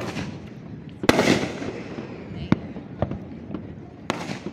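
Aerial fireworks bursting: about five sharp bangs, the loudest just over a second in, each trailing off in a rolling echo over a background of crackle.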